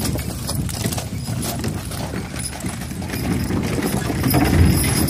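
A pair of Clydesdale horses pulling a wooden wagon: steady hoofbeats with the rattle and clink of harness and wagon over a low rumble.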